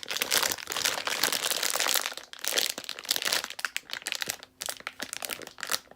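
Crinkling of plastic packaging as a squishy toy is handled: dense rustling and crackling, loudest in the first half, then thinning to scattered crackles after about three and a half seconds.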